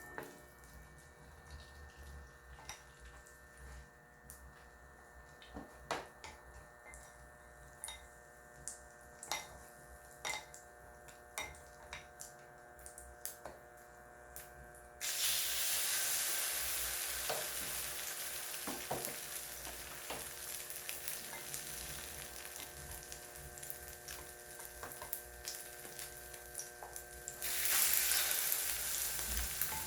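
Starch- and egg-coated tofu slices frying in oil in a frying pan. Light clicks and taps for the first half, then sizzling starts abruptly about halfway through and gets louder near the end.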